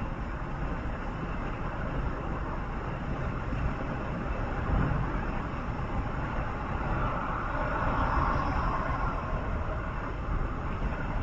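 Steady rumble and road noise of a moving vehicle, with a louder swell from about seven to nine seconds in.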